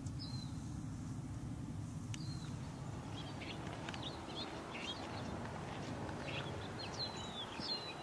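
Small songbirds chirping: a few short calls in the first two seconds, then many quick chirps from about three seconds in, over a steady low background hum.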